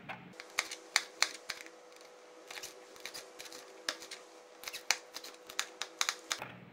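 Kitchen knife chopping green chillies on a plastic cutting board: sharp, irregular taps of the blade striking the board, sometimes a few in quick succession.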